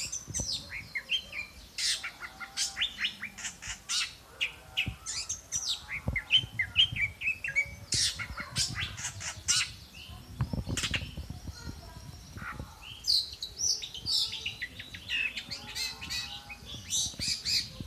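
Songbird singing a long, varied song of quick, sharp chirps and short trills that runs on without a break.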